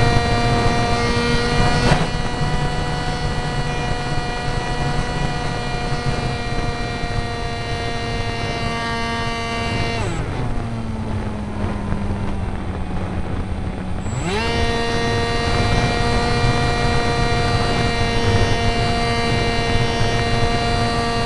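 Onboard sound of a Funjet-style RC model jet's electric pusher motor and propeller running at a steady high whine with wind rush. About ten seconds in, the throttle is cut and the whine falls away to mostly wind noise. Some four seconds later it winds back up to full power.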